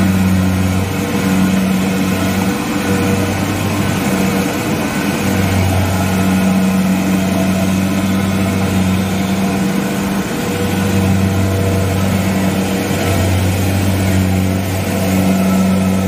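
Diesel engine of a Kubota rice combine harvester running hard as its tracks churn through deep mud. Its steady drone swells and eases every couple of seconds with the changing load of a machine sinking in the mire.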